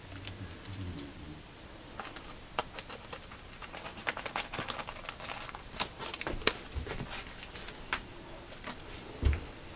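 Clear plastic packet of dried pressed flowers crinkling as it is handled and opened, in scattered small crackles and clicks, one sharper crackle a little past the middle.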